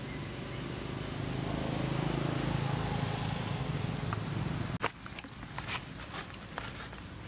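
A steady low hum of background noise that stops abruptly about five seconds in. After it, dry leaf litter crackles and rustles in scattered sharp ticks as macaques move over the forest floor.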